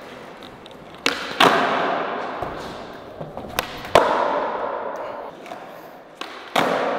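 Skateboards popped and landed on a smooth concrete floor: sharp clacks about a second in, around four seconds in and near the end, each a pop followed a fraction of a second later by a louder landing, echoing through a large hall.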